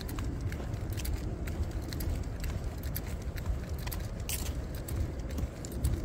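Dog-walk handling noise: light metallic clicking and jingling of the leash clip and harness hardware, a few irregular clicks a second, over a steady low rumble.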